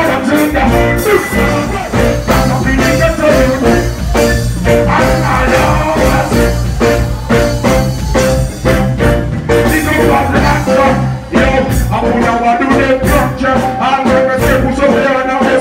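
Live reggae performance: a male vocalist sings into a microphone over a steady beat with heavy bass, loud and continuous, as heard through a phone recording in the venue.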